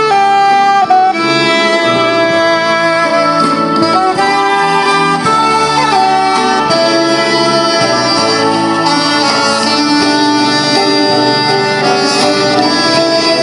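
Saxophone playing a melody of held notes over sustained lower accompaniment.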